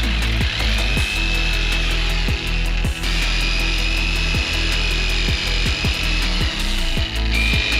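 Corded jigsaw cutting through a wooden frame, its motor whine holding a steady pitch after a brief dip about half a second in. Background music plays throughout.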